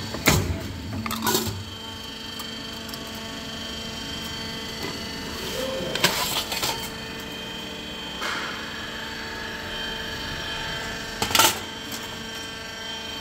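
Die-cutting press running with a steady hum, broken by sharp metal clanks and clatters of the die and the cut sheet-metal pieces: a cluster near the start, another about six seconds in, and a last near the end.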